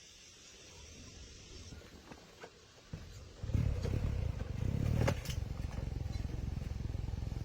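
A few clicks and knocks, then an engine starts about three and a half seconds in and keeps running with a steady low rumble.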